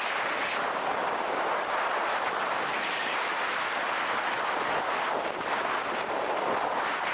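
Strong wind blowing across the microphone: a steady, dense rushing noise with slight gusting swells.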